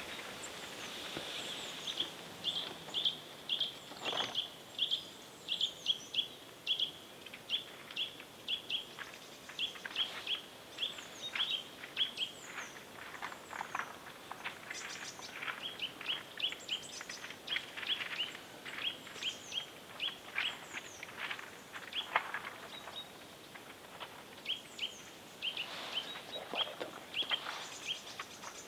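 Small songbirds calling in open woodland: a long run of short, high chirps about two a second, with thin falling whistles above them. A faint crack or rustle comes about four seconds in.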